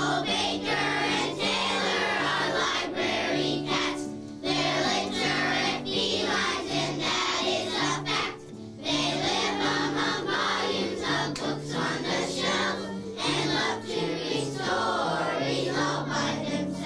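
A class of young children singing together in unison, over an instrumental accompaniment with a stepping bass line, with brief breaks between sung phrases.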